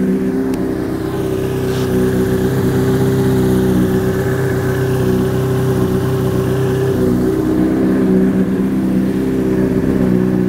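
Honda CBR1000RR's inline-four engine running steadily at idle, its pitch flat. It is running so the water pump circulates fresh coolant and burps the air bubbles out of the cooling system after a coolant flush.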